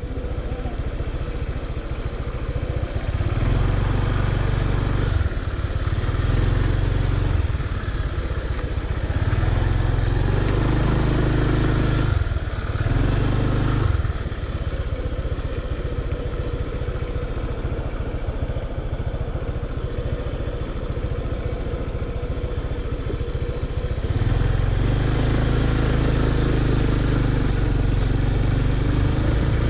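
Motor scooter engine running as it is ridden over a muddy, rutted dirt track. The throttle is opened and eased off in turns, the engine goes quieter for a stretch in the middle, and it pulls harder again near the end.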